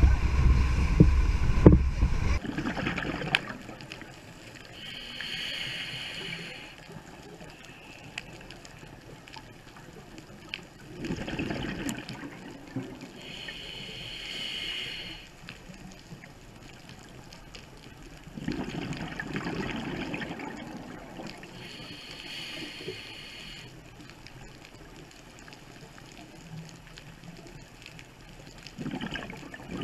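About two seconds of loud wind and boat noise on the deck of a dive boat, then underwater scuba breathing through a GoPro housing: a hiss from the regulator on each inhale and gurgling exhaled bubbles, roughly one breath every eight seconds.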